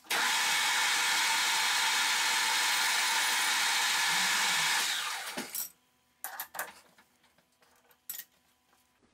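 Metal lathe running with a light cut on the end of a threaded stud held in a split nut in a three-jaw chuck, a loud steady machining noise that starts suddenly. About five seconds in it stops and the spindle runs down, then a few short metallic knocks follow as the chuck is opened.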